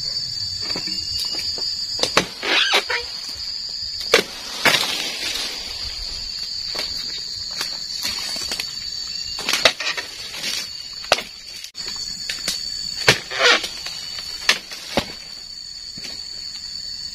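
Oil palm pruning chisel (dodos) on a pole chopping into frond bases: a dozen or so sharp cracks and knocks at irregular intervals, some followed by a short rustle of leaves. A steady high-pitched insect drone runs underneath.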